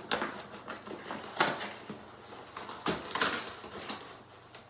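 Thin cardboard box being handled and opened by hand: a few short scrapes and rustles of cardboard as the flap is worked open.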